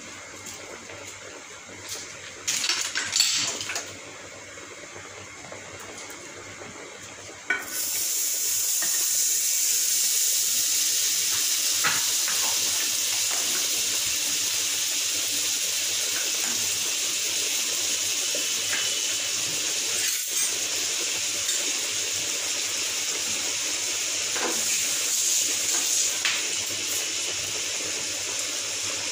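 Butter sizzling as it melts in a hot steel kadhai on a gas burner: a steady hiss starts suddenly about eight seconds in and goes on as the butter foams and bubbles. A brief clatter comes about three seconds in, before the sizzling starts.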